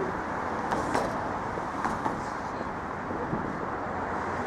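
City street traffic: a steady wash of passing cars and engines, with a few brief sharp clicks.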